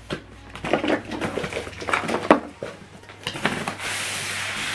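Plastic packaging crinkling with small knocks of handling, then from about four seconds in a steady rubbing as the plastic-wrapped printer in its foam end caps is drawn out of its cardboard box.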